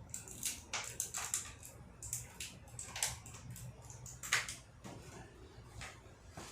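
Hands working a headlight bulb and its rubber dust cap into a headlight housing: irregular short clicks, scrapes and rustles of plastic and rubber, the sharpest a little past four seconds in, over a steady low hum.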